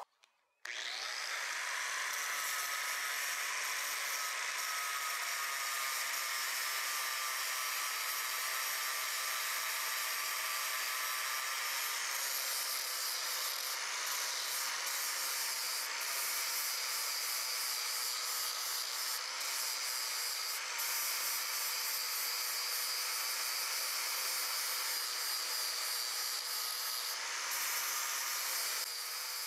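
Angle grinder with a flap disc sanding the edges and pole of a steel axe head cut from a forklift tine: a steady motor whine over a hissing rasp, starting abruptly less than a second in.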